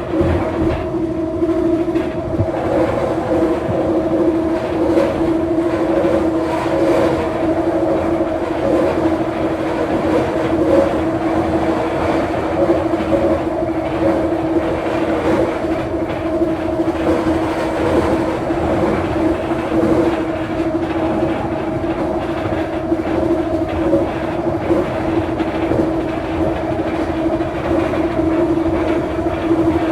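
Scarborough RT light-metro car (UTDC ICTS Mark I) running at speed, heard from inside: the linear induction motor gives a steady hum at a constant pitch over the rumble of steel wheels on the rails, with occasional faint clacks.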